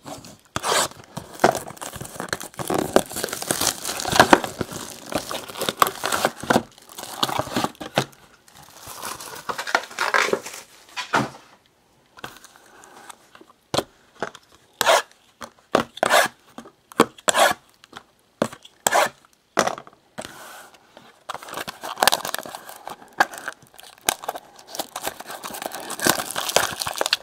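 Plastic shrink-wrap being torn and peeled off a trading-card hobby box, crinkling and crackling, with sharp clicks and taps as the cardboard box is handled. There is a brief lull about halfway through, then more scattered crackles and clicks.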